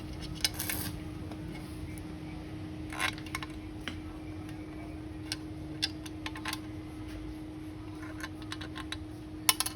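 Scattered light clicks and clinks, a dozen or so at uneven intervals, with a sharper one near the end, over a steady low hum that holds one constant tone.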